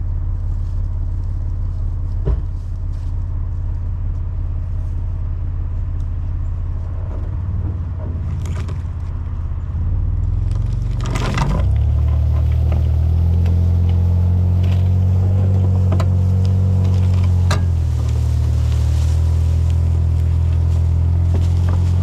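Engine of a vehicle skidding a chained pine log, running steadily under load. About halfway through it revs up and gets louder for several seconds, then eases a little, with a few sharp clicks along the way.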